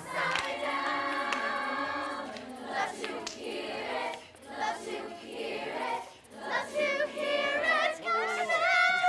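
A group of women's voices singing together a cappella, without instruments. Near the end a single voice sings on its own with a strong vibrato.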